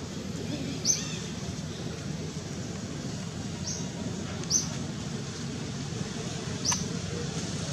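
A bird repeating a single short, high chirp four times, a few seconds apart, over a steady low background rumble.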